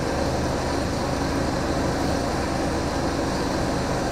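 2012 Buick Verano's four-cylinder engine idling steadily.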